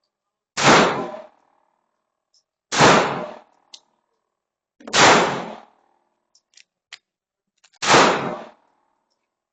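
Airsoft gun fired in single shots, four times about two seconds apart, each shot a sharp crack with a short fading tail. A few much fainter sharp ticks come in the gaps.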